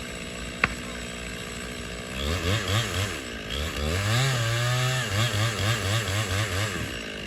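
Gasoline chainsaw idling with a sharp click under a second in. About two seconds in it is revved up and down several times, held at high revs briefly, then blipped in quick pulses before dropping back toward idle near the end.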